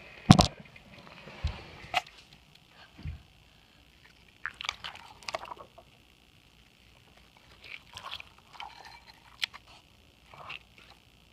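Hands squeezing and pressing slime, making irregular wet squelching, fart-like pops and squishes, the loudest right at the start and the rest in scattered clusters with short pauses between.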